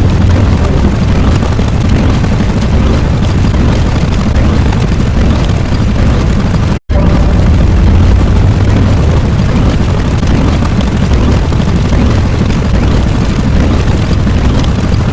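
Loud, continuous deep rumbling noise, like a sustained explosion or eruption sound effect. It cuts out for an instant about seven seconds in, starts again at once, and stops abruptly at the end.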